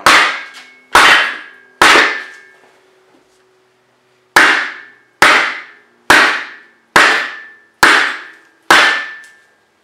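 A big hammer pounds on a wood block set over a cylinder sleeve, driving the sleeve down into a Ford 8N tractor's engine block. There are nine sharp blows, each with a short ringing tail: three about a second apart, a pause, then six more in steady rhythm.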